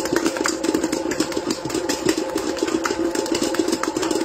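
Electric stand mixer running steadily with its dough hook kneading stiff yeast bread dough, the motor giving a constant hum over frequent knocks and rattles from the dough and bowl.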